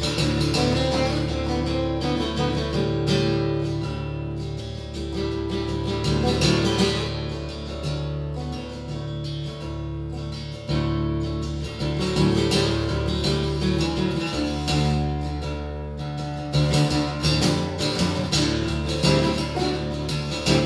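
Solo acoustic guitar playing live, with chords struck in a rhythmic pattern over sustained notes.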